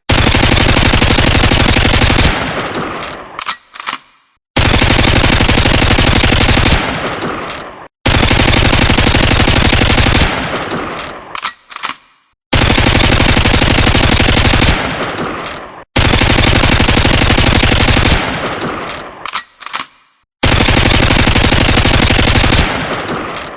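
Uzi submachine gun firing on full automatic in six bursts of about two seconds each, each burst trailing off in a fading echo.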